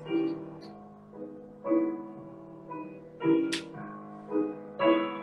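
Piano ballet-class accompaniment: chords struck on the beat, each one ringing and fading before the next.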